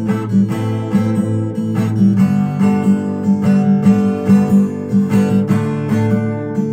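Acoustic guitar strumming chords in a steady rhythm, an instrumental passage without singing.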